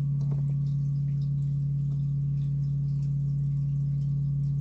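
A steady low electrical or motor hum, unchanging throughout, with a few faint light clicks from eggs and the light being handled.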